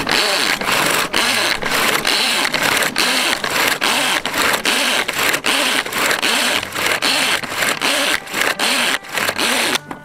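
Pull-cord manual mincing chopper whirring as its cord is yanked about twice a second, the blades spinning up and falling back with each pull as they chop cabbage. It stops abruptly near the end.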